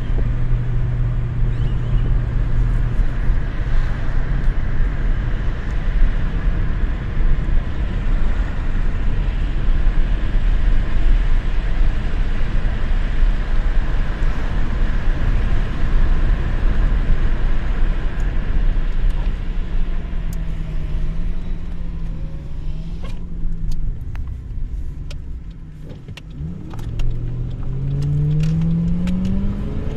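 Ford BF Falcon XR8's 5.4-litre Boss V8 and road noise heard from inside the car while cruising. Near the end the engine note drops away, then climbs steeply in pitch as the car accelerates hard.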